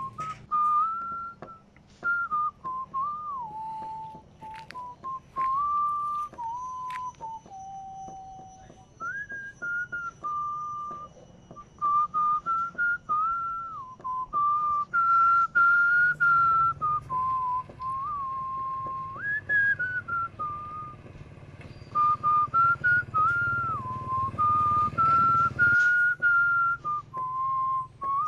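A person whistling a slow tune: a single clear note that holds, steps and glides between pitches, with brief breaks between phrases.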